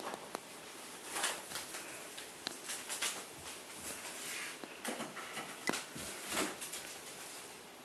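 Irregular rustling, scratching and light taps of a cat at play, chasing a paper toy dragged along on a string.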